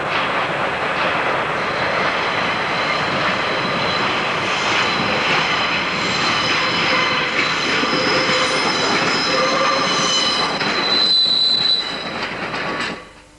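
British Rail Class 144 Pacer diesel railbus running past at low speed, its wheels rumbling over the rails and pointwork. From about four seconds in a high-pitched wheel squeal rises over the running noise, loudest just before the noise drops away sharply near the end.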